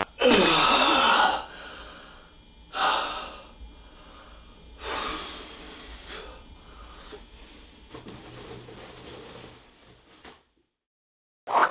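A man's loud, strained cry, then heavy gasping breaths, two of them strong and the rest quieter, fading away.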